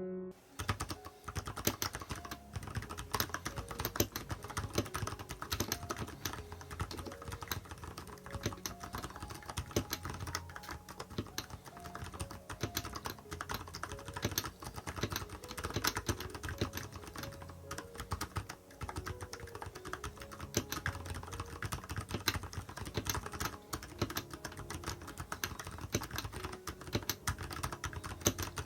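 Steady, fast typing on a Nuphy Halo 65 mechanical keyboard fitted with silent brown tactile switches: a dense, irregular run of keystrokes. The switches have a scratchy tactile feel mixed with a soft clack.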